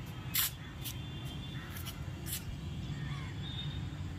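Faint crows cawing over a steady low rumble, with a few short sharp rustles, the loudest about half a second in.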